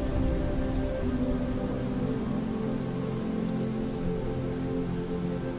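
Steady rainfall, with soft, sustained piano music playing beneath it.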